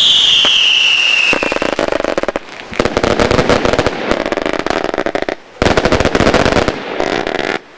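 Consumer fireworks going off. A whistle falls in pitch over the first second or so, then comes dense, rapid crackling and popping in several volleys, with short breaks about five and a half and seven seconds in.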